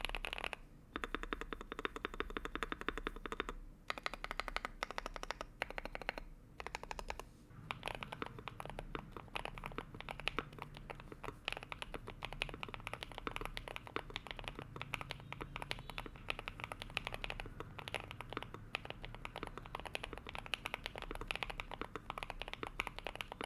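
Typing on a mechanical keyboard with KTT Coconut Latte linear switches, PC keycaps and a CNC aluminum case: a fast run of keystrokes with a couple of short pauses, becoming quicker and denser from about eight seconds in.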